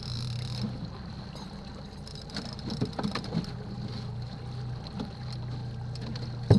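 A 50 hp outboard motor on an inflatable boat runs steadily at trolling speed with a low, even hum. A few light knocks come a couple of seconds in.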